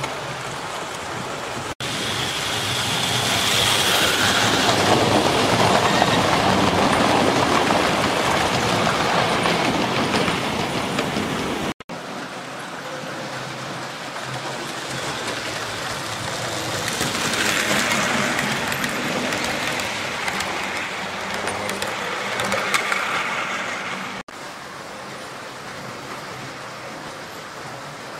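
00 gauge model trains running on the layout's track: a steady rattle and rumble of wheels and motors that swells twice as a train passes close, and breaks off abruptly three times.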